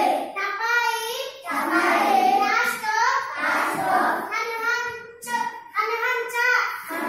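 Children singing, phrase after phrase with short breaks between.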